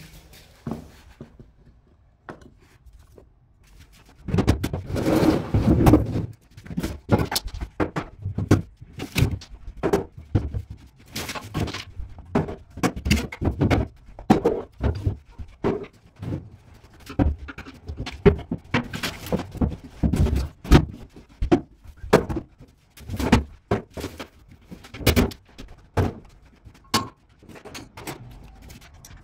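Irregular knocks, thuds and clatter of furniture and household junk being moved and thrown around while a room is cleared out, starting about four seconds in.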